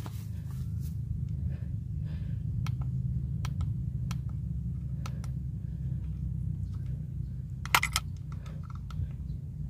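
Scattered light plastic clicks from a handheld digital hanging scale being handled while it is set to zero, with a louder double click near the end, over a steady low rumble.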